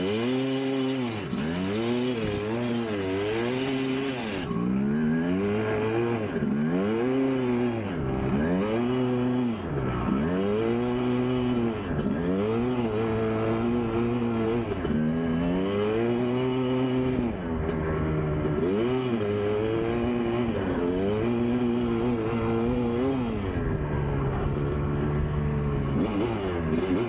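1999 Kawasaki KX250's single-cylinder two-stroke engine revving up and down over and over, each rev rising and falling in pitch about every second and a half, with a couple of steadier stretches at lower revs in the second half.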